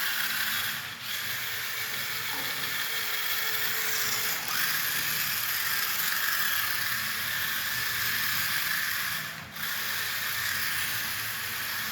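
Remote-control toy car's small electric motor and gears whirring steadily as it spins its wheels in donuts on a wet, slippery floor. The whir drops off briefly about a second in and again near the end.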